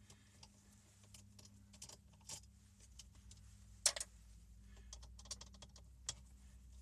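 Scattered small clicks and ticks of a Phillips screwdriver backing small screws out of a plastic dashboard panel, with one sharper, louder click about four seconds in and another just after six seconds.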